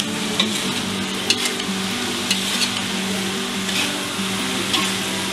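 Metal spatula stirring cubed tempe, tofu and potato in a sizzling wok, with scattered clicks and scrapes of the spatula against the pan. The sweet soy and palm-sugar sauce is cooking down until the pan is almost dry.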